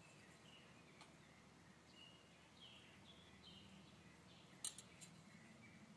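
Faint bird chirps, short high calls repeated on and off, with one small metallic click a little past the middle.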